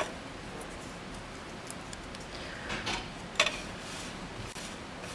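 A few small sharp clicks and scratches of a hand tool picking and breaking support material away from a 3D-printed plastic part. The loudest snap comes about three and a half seconds in.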